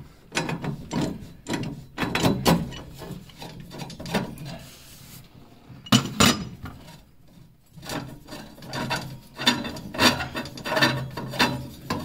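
Threaded drain pipe being turned out of a brass boiler pressure relief valve by hand, its corroded threads scraping and clicking unevenly. The scraping eases off briefly around seven seconds in.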